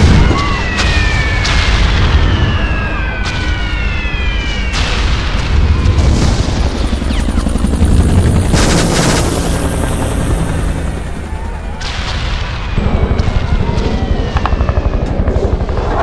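War sound-effects mix: a continuous deep rumble of explosions and booms, with sharp gunfire-like cracks and several falling whistles, like incoming shells or diving aircraft, early on and again near the end.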